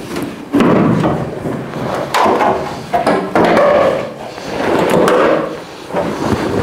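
A 1970 El Camino's old steel quarter panel being wrenched free and lifted off the body: sheet metal scraping and clattering in several loud surges, with sharp knocks between them.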